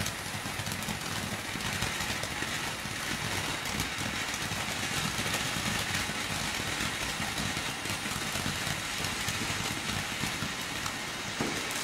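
Ground firework fountain spraying sparks with a steady hissing rush and a few faint crackles.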